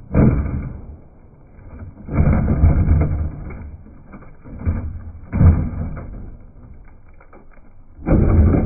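RC off-road truck tumbling down a rocky slope: a crash as it starts falling, several heavy clattering thuds as it bounces and rolls, and a final crash near the end as it lands upside down on the other trucks.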